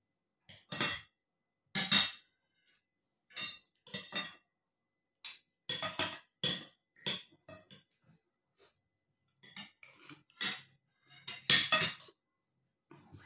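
Metal fork and spoon clinking and tapping against a plate during a meal, in short irregular clinks with pauses between them, a cluster of louder ones near the end.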